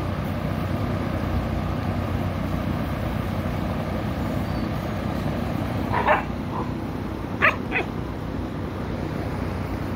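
Anatolian Shepherd puppies giving a few short, high yips, one about six seconds in and two close together about a second and a half later, over a steady low rushing noise.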